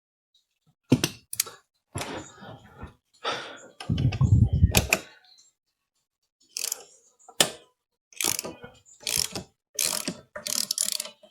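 A socket ratchet clicking in short bursts of strokes as it works a 17 mm engine-mount bolt loose on a Royal Enfield Classic 500, with one louder, deeper burst about four seconds in.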